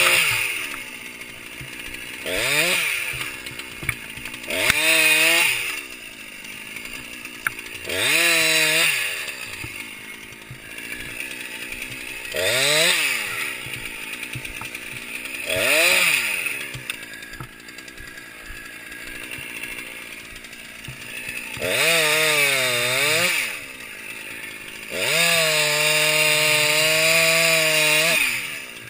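Husqvarna 346XP two-stroke chainsaw idling between short bursts to full throttle, about eight in all, as it cuts through cottonwood limbs. The last cut near the end is held for about three seconds.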